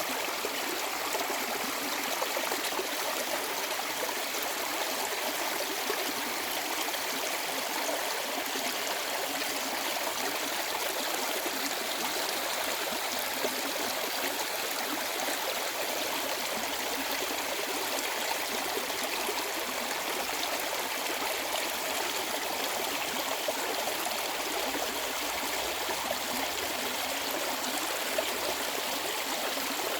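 A mountain stream running steadily over rocks, a continuous rushing and babbling of clear water.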